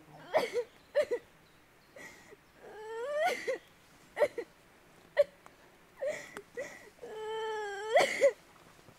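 A woman crying: a run of high, wavering sobs and whimpers, two of them long drawn-out wails, with short gaps between.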